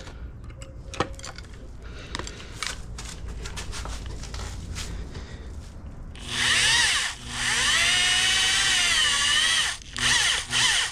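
Electric drill boring into stainless steel pipe. After a quiet stretch of small clicks and scrapes, the drill runs loud about six seconds in with a whine whose pitch sags and recovers under load, stops briefly, then starts and stops in short spurts near the end.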